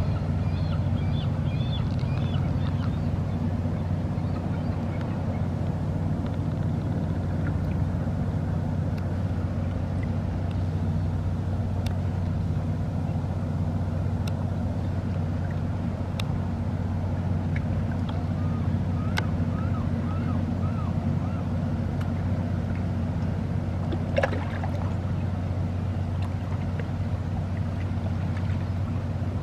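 Boat engine running with a steady low drone. Short high bird calls come over it near the start and again about two-thirds through, and there is one sharp knock near the end.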